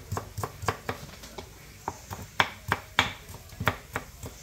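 Kitchen knife finely chopping onion on a cutting board: a quick, uneven run of sharp knocks, with a short pause just under halfway through.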